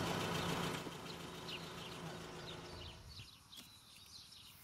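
Faint outdoor summer ambience: many short, scattered high chirps over a low steady hum that fades out about three seconds in.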